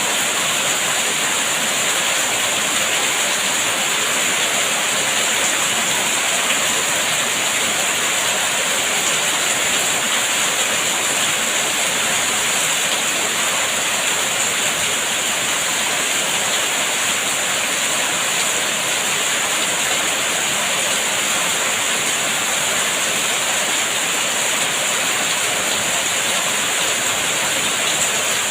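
Steady rain falling, a continuous even hiss with no distinct drops or thunder.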